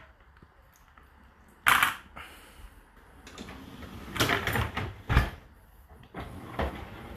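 Dishwasher racks and dishes being handled: a sharp clatter about two seconds in, then rattling and a few knocks.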